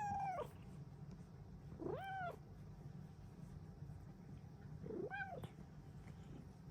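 Silver Bengal cat meowing three times, each meow short and rising then falling in pitch, over a low steady hum.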